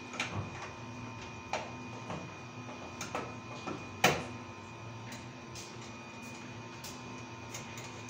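A handful of short metal clicks and taps as a door closer's arm is worked on with a hand tool, the sharpest and loudest click about four seconds in, over a steady hum.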